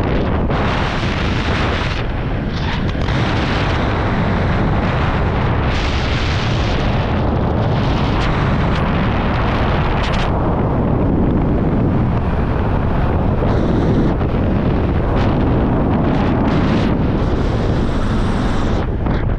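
Wind buffeting a helmet camera's microphone during a parachute descent: a loud, steady rumbling rush of air. The hiss thins out about halfway through, leaving mostly the low rumble.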